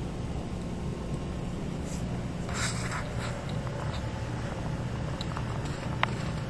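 Steady low mechanical hum, like a fan, with a short scratchy rustle about two and a half seconds in and a small click near the end.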